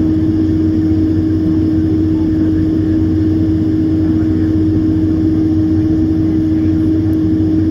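Steady cabin noise inside a Boeing 767-300ER taxiing, its two General Electric CF6 turbofans at low power: an even drone with one constant tone running through it.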